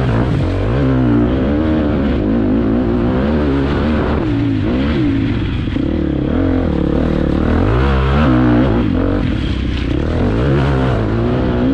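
Motocross dirt bike engine heard on board while riding, its revs rising and falling again and again as the throttle is worked through the corners and straights.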